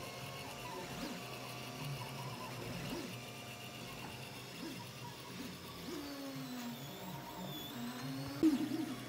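FDM 3D printer at work, its stepper motors whining in shifting, gliding pitches as the print head moves, over a steady fan hum. Near the end there is a brief louder burst of motor tones.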